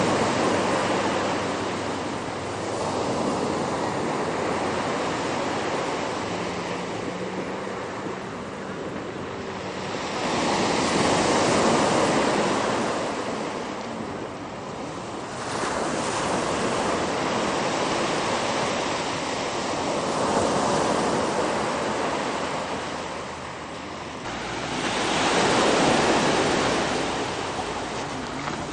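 Ocean surf breaking on the shore: a steady rushing wash that swells loud and ebbs every few seconds as each wave comes in.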